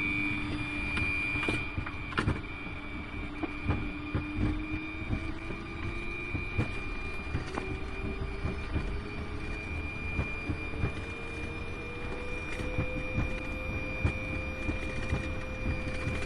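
Inside a Fokker 100's cockpit during the takeoff roll: the Rolls-Royce Tay turbofans run at takeoff power with a steady high whine. A lower tone rises slowly and levels off a few seconds before the end. Underneath is a rumble with frequent knocks and rattles as the jet rolls down the runway.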